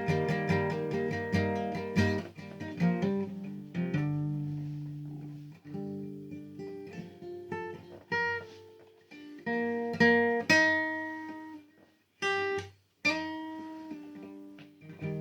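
Acoustic guitar played: quick strummed chords for the first few seconds, then slower chords left to ring out, broken by two brief stops near the end.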